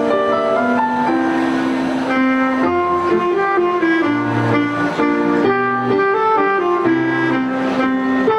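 A saxophone playing a melody in held, stepwise notes over a keyboard accompaniment with a moving bass line.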